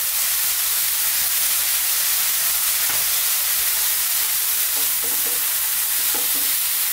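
Chicken and mushrooms sizzling steadily in a non-stick frying pan, stirred and tossed with a wooden spatula.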